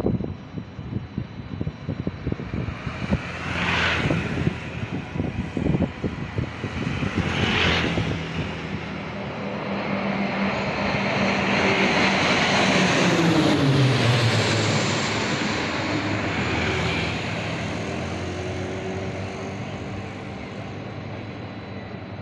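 A formation of KT-1B Wongbee single-turboprop trainers flying over, the engine and propeller noise building to a peak about two thirds of the way through. Its pitch drops as the formation passes overhead, then it fades away.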